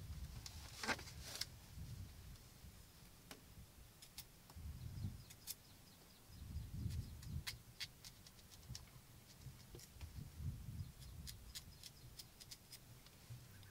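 Hand-peeling of cucumbers with a small knife: faint, scattered clicks and scrapes of the blade on the skin, with a few soft knocks from handling. A brief rustle about a second in as she settles onto the slatted bamboo bench.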